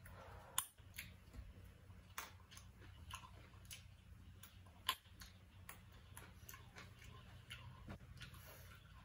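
Faint eating sounds: irregular clicks and lip smacks of a man chewing rice and vegetables eaten by hand, two of them sharper, about half a second in and near five seconds, over a faint steady low hum.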